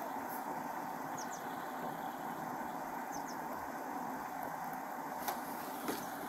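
Steady hum of a vehicle engine idling, with no pitch changes. Two sharp clicks come near the end.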